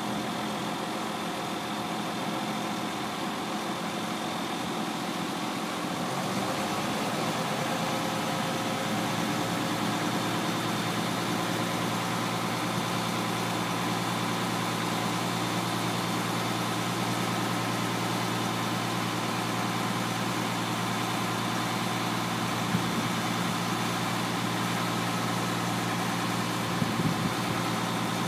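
1981 International F1954 grain truck's diesel engine running steadily while the hydraulic hoist tips up the steel grain box. About six seconds in, the engine note changes and gets a little louder as the hoist takes the load, with a few faint knocks near the end.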